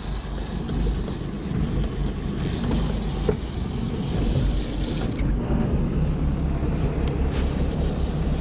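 Boat engine running steadily under the hiss of wind and water rushing past the hull, with one sharp knock about three seconds in.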